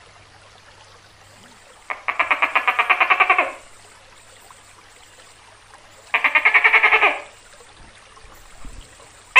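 Tokay gecko giving two rapid rattling chuckles, the first about a second and a half long, the second about a second, some four seconds apart.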